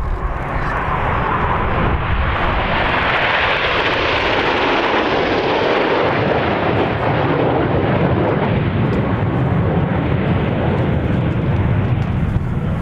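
Jet noise from a formation of seven BAE Hawk T1 trainers with Adour turbofans passing over. A rising rush peaks a few seconds in, then gives way to a deeper rumble as the jets pass.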